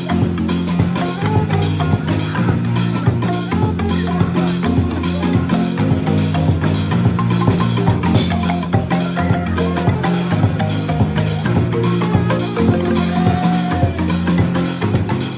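Marimba band playing live: a dense, steady pattern of mallet strikes over strong low bass notes, with drums.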